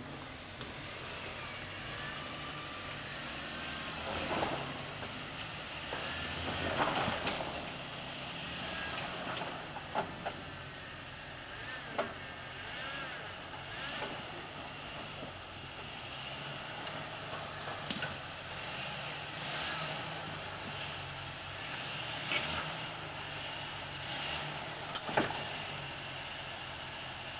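Jeep XJ Cherokee engine running at low revs while crawling over rocks, a steady low drone throughout. Several sharp knocks are scattered through it, a few seconds apart.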